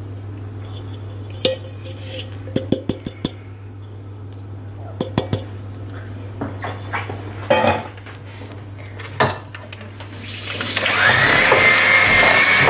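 Scattered clinks and knocks of metal beaters and utensils against a glass mixing bowl. About ten seconds in, an electric hand mixer starts up: its motor whine rises, then holds steady as the beaters work cocoa powder into the creamed butter and sugar.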